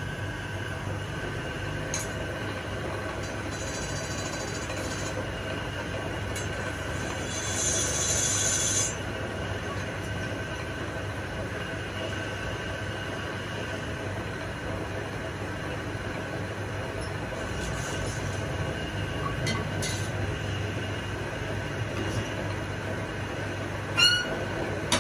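Electric motor-driven wood lathe running with a steady whine and hum as it spins a wooden cot-leg blank. A hand chisel bites into the spinning wood twice, a hissing scrape, and a short sharp squeal comes near the end.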